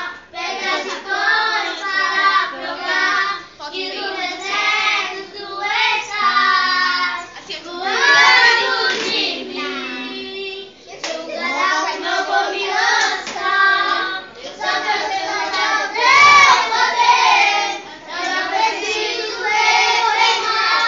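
Children singing a song together in phrases, with short breaks between lines every few seconds.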